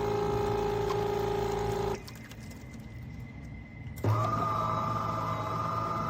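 A small electric motor whining steadily for about two seconds and stopping, then starting again at a higher pitch about four seconds in.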